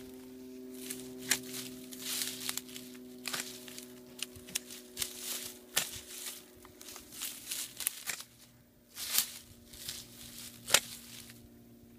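Long-handled loppers cutting bamboo-grass stems at the base among dry leaves and litter: a string of sharp snips and crunches with rustling in between, the loudest snaps about a second in and near the end.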